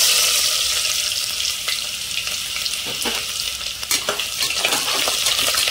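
Chopped onions frying in hot oil in a pressure cooker: a loud, steady sizzle that eases slightly over the first couple of seconds, with short clicks of a spoon against the pot as the onions are stirred.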